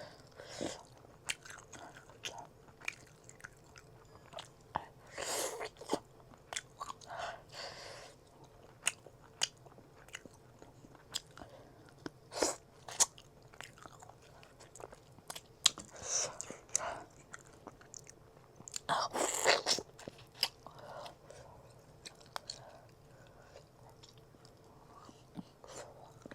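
A person chewing and eating a rice-and-curry meal, with frequent short wet mouth clicks and smacks and a few louder bite noises about five, sixteen and nineteen seconds in.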